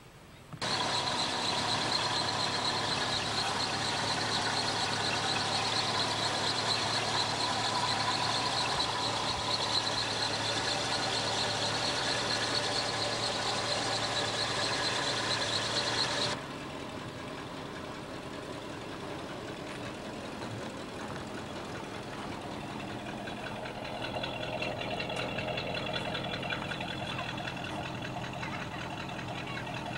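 1971 Ford Mustang Mach 1's 351 four-barrel V8 running steadily at idle. It comes in suddenly just after the start and drops abruptly to a quieter level about halfway through.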